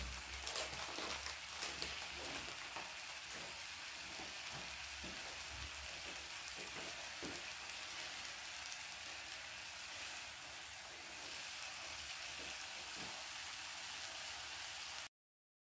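Marinated steak, sausages, onions and bell peppers sizzling on a Korean barbecue grill pan: a steady hiss with small crackles and pops. It cuts off suddenly near the end.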